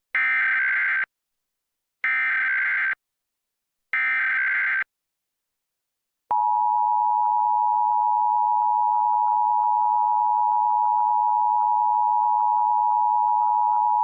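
Emergency Alert System tones: three one-second bursts of the buzzy, warbling SAME digital header data, then after a short pause the steady two-tone EAS attention signal (853 Hz and 960 Hz together) for about eight seconds. Together they open a nationwide EAS test message.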